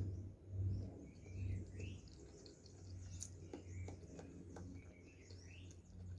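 Small birds chirping in the background over a low steady hum, with soft chewing that swells a few times in the first second and a half and a few light clicks around the middle.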